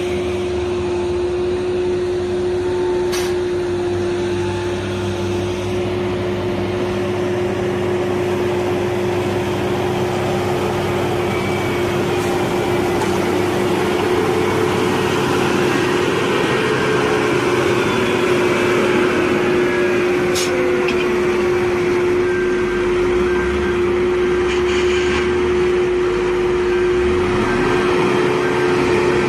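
Heavy road-construction machinery running steadily, an engine drone with a constant steady hum over it and a few slow rises and falls in engine pitch in the second half.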